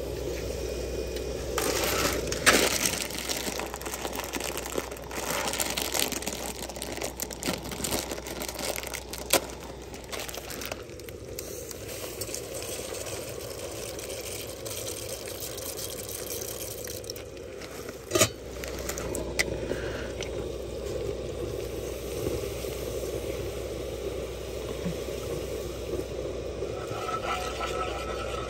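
Cooking on a portable butane camp stove: a plastic pasta bag crinkling as dry pasta is poured into a pot of boiling water, a few sharp clinks of a metal lid and utensils, and near the end a spatula scraping through melting butter in a cast-iron skillet, over the stove's steady burner noise.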